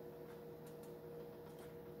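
Faint room tone: a steady electrical hum with a few soft, scattered ticks.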